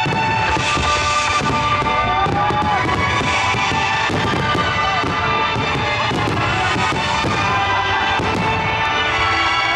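Firework shells bursting and crackling in quick succession, over music with sustained tones.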